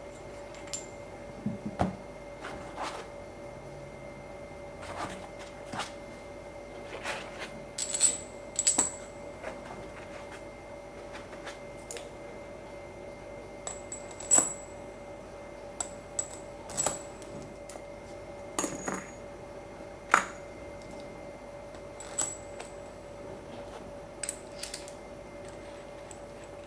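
Metal workholding parts clinking and clicking as they are handled and seated, some strikes with a short high ring, irregularly every second or two over a steady machine hum.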